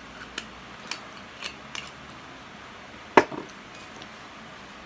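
Small clicks and taps as a glass soju bottle's cap is handled, then a sharp knock about three seconds in, with a couple of lighter knocks just after, as the bottle is set down on the table.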